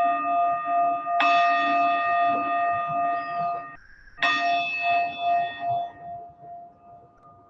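Meditation bell, a bowl-type bell, struck twice about three seconds apart. Each stroke rings on with a wavering, pulsing tone. The first ring is cut off just before the next strike, and the last one fades away near the end.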